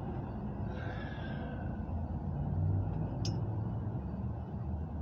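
Steady low mechanical hum, with a short rustle about a second in and a single sharp click a little after three seconds in.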